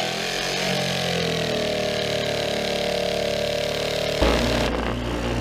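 Corded jigsaw running as it cuts a circle through plywood, its pitch wavering slightly under load. About four seconds in it gives way abruptly to the lower, steady hum of a bench disc sander's motor.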